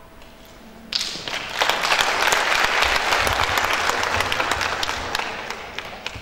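Audience applauding in a hall. It breaks out suddenly about a second in, holds as dense clapping, and dies away near the end.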